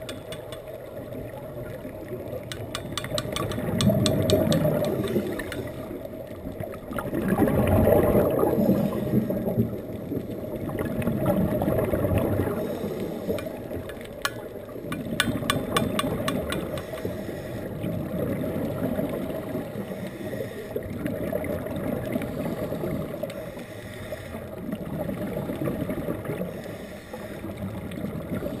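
Scuba tank being banged in rapid runs of sharp clicks, twice, about three seconds in and again about fifteen seconds in: the dive guide's signal that she has seen something interesting. Underneath, rushing underwater noise swells and fades every few seconds, like a scuba regulator's exhaled bubbles.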